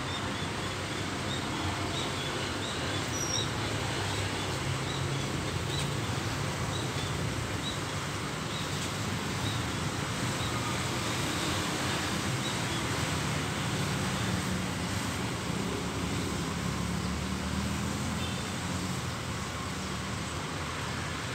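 Steady outdoor background noise with a low rumble that swells and fades, like distant road traffic, and a few faint high chirps in the first several seconds.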